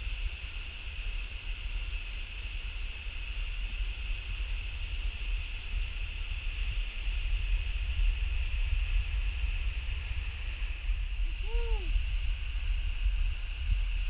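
Jungle ambience: a steady high insect drone over low wind rumble on the microphone. About two-thirds of the way through comes a single short hooting call that rises and falls in pitch.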